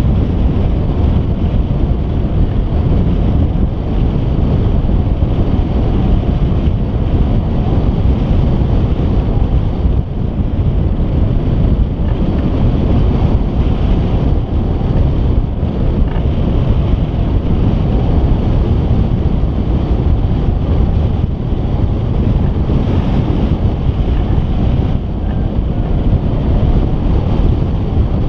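Airflow of a hang glider in flight buffeting the microphone: a steady, loud rush of wind, heaviest in the low rumble.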